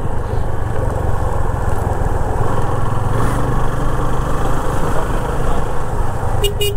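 Yamaha FZ25's 249 cc single-cylinder engine running at a steady cruise, with wind noise on the handlebar-mounted camera. A horn gives a few short toots near the end.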